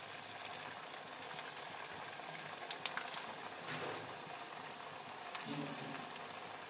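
Sabudana-and-potato pakoras deep-frying in hot oil in a kadhai: a steady sizzle with a few sharp crackles and pops.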